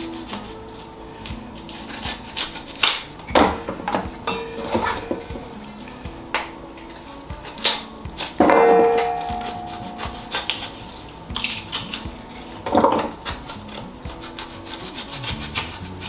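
Knife blade scraping and prying coconut meat from the hard shell, in short rasping strokes with scattered clicks. About eight seconds in comes a louder knock that rings on briefly, like metal striking the stainless steel bowl.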